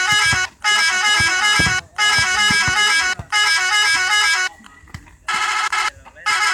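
Indonesian 'telolet' multi-tone bus horn playing quick stepping tunes, loud, in bursts of about a second with short breaks between and a longer pause about four and a half seconds in.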